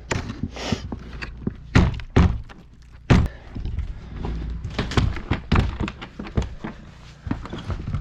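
A run of knocks, thuds and clunks as things are shifted and set down, with a couple of louder bangs about two and three seconds in.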